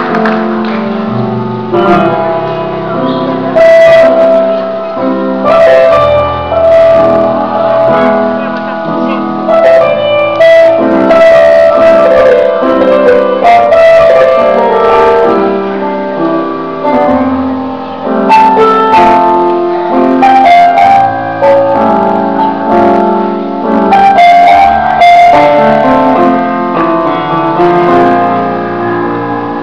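Piano music playing loudly: a melody of held notes over lower chords, with no pauses.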